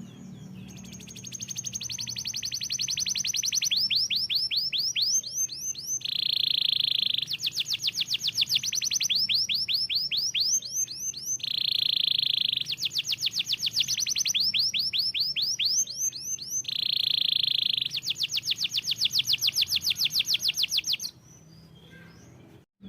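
Domestic canary singing: long, rapid trills of repeated falling high notes, broken about three times by a short steady buzzing tone, with a faint low hum underneath.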